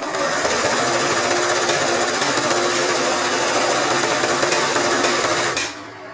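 Embroidery sewing machine running at speed, stitching steadily, then stopping abruptly near the end.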